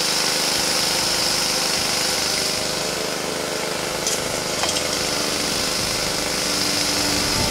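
Small petrol engine running steadily, powering the gold trommel's water supply. Two short sharp knocks come a little past the middle, as the shovel works the gravel.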